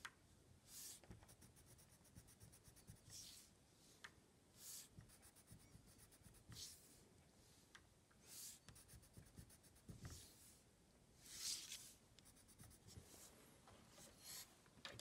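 Faint scratching of a coloured pencil drawn along a ruler's edge on card, in a series of short strokes about one every second or two, the loudest a little past the middle.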